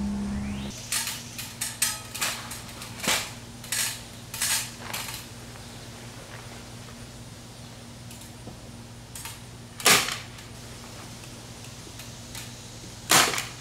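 Staple gun driving staples to fasten house wrap to a garage door frame: a quick run of sharp clacks in the first few seconds, then two louder single clacks later on.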